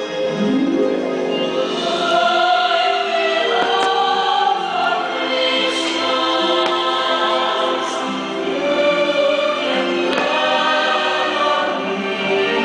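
Choir singing held, sustained notes over orchestral music: the fireworks show's soundtrack.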